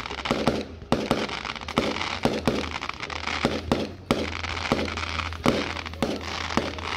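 Fireworks display: a rapid run of bangs from bursting aerial shells, coming two or three a second, with a steady low hum underneath.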